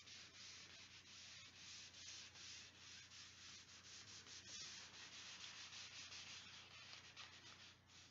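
Faint, repeated rubbing of a hand sweeping over paper, smoothing a sheet down onto a glued cover board, a few strokes a second. It presses the paper flat to work out air bubbles.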